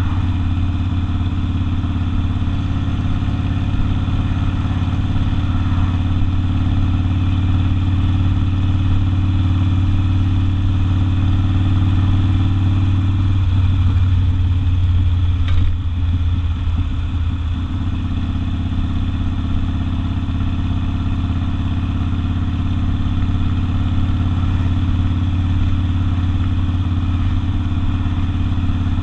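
Harley-Davidson Sportster's air-cooled 45-degree V-twin engine running through an open exhaust, loud and steady. About halfway through, the engine note shifts and breaks up for a few seconds, then settles again.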